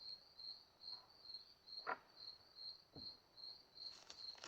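A cricket chirps steadily and faintly, about two and a half high chirps a second. A couple of faint clicks come from small parts being handled, one about two seconds in and another a second later.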